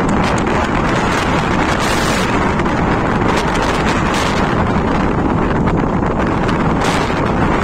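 Wind blowing hard across the microphone, a loud, steady rushing rumble.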